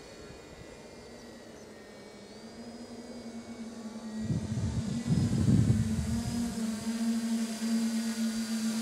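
Electric quadcopter's motors and propellers humming with a steady low drone and a high whine, growing louder as it comes nearer. Low buffeting noise breaks in about four to six seconds in.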